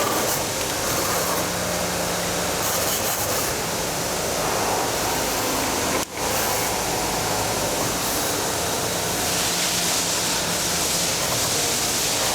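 Steady mechanical noise with a hiss and faint motor hum from a 12-axis CNC wire-forming machine running as it bends wire into an extension spring, with a brief break about halfway through.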